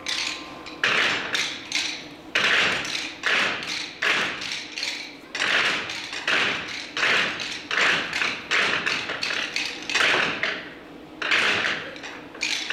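Uneven series of sharp taps and slaps, about two a second, each followed by a short hissing rush.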